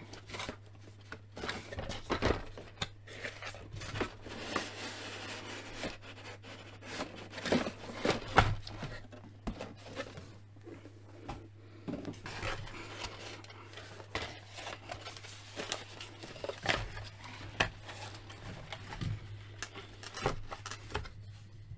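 Cardboard box packaging being handled: flaps, inserts and packing paper rustling and scraping, with scattered clicks and taps, over a steady low hum.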